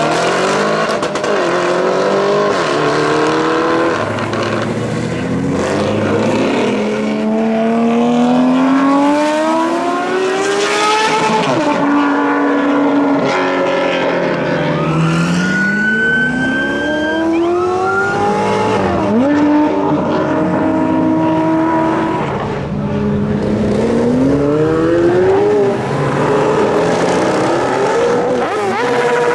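Several supercar engines accelerating hard, one after another and at times overlapping. Each climbs steeply in pitch through the revs, then drops sharply at an upshift before climbing again.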